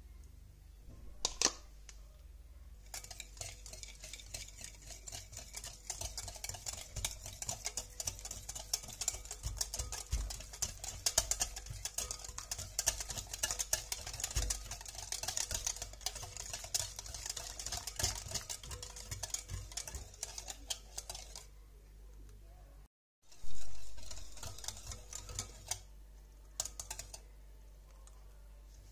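Wire whisk beating a yogurt and egg batter in a glass bowl: rapid clicking and scraping of the metal wires against the glass for most of twenty seconds. After a short break there is a sudden loud knock that fades over about a second, then a few more seconds of whisking.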